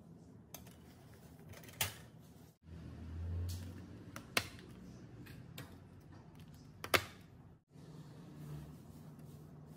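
Aluminium foil baking tins and their plastic lids being handled on a hard countertop: a few sharp clicks and knocks, three loud ones spread through, over faint room noise.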